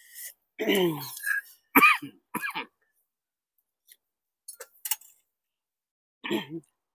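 Throat-clearing and short vocal sounds from people eating, in a few brief bursts with gaps between. A few faint clicks come about two-thirds of the way through.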